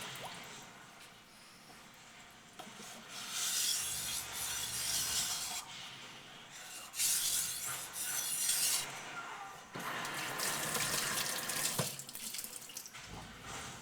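Large knife blade (Becker BK9) drawn in long strokes across a wet 180 grit waterstone: a hissing scrape, about four strokes of a couple of seconds each with short pauses between.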